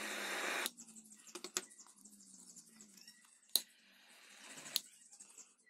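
Small plastic clicks and taps from a lithium-ion cell and a plastic battery holder being handled, with a short hiss in the first second and two sharper clicks, about three and a half seconds in and near the end.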